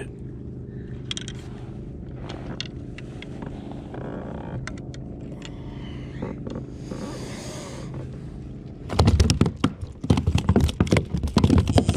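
A trout flopping and slapping on the plastic deck of a kayak: a rapid, irregular run of loud thumps starting about nine seconds in, over a steady low hum.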